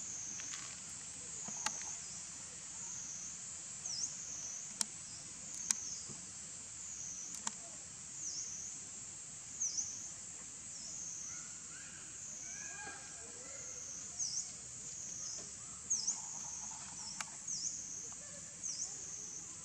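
Steady high-pitched insect chorus, its buzz wavering in a regular pulse, with a few sharp dry crackles.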